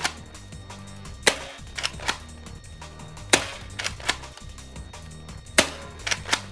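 A spring-upgraded Nerf Longshot (Zombie Strike Longstrike) blaster firing darts through a chronograph in a speed test. There are three sharp snaps about two seconds apart, each followed by two lighter clicks, over background music.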